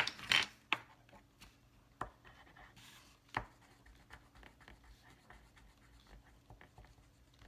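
Faint scratching of a pen writing on a paper notepad, with scattered small clicks and a few sharper taps and knocks of handling: the loudest at the very start, others about two and three and a half seconds in.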